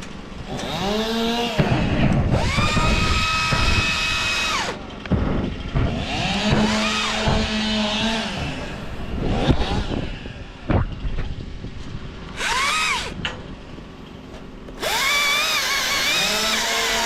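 Chainsaw engine revved in several bursts. Each burst climbs to a held high pitch for one to four seconds, then falls back to a low idle before the next.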